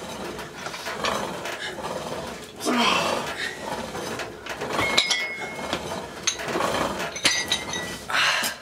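Breathing hard through the reps of a one-arm cable row, with sharp metallic clinks from the cable machine's handle and weight stack twice, about five seconds in and again about two seconds later.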